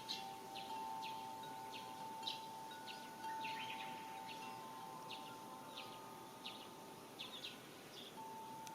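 A bird repeating short high chirps nearly twice a second over the faint, lingering ring of a Korean temple wind bell (pungyeong).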